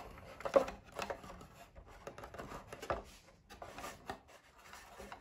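Metal prop shaft being slid into its tube through the plywood frames of a model boat hull: faint scraping with a few light clicks and knocks.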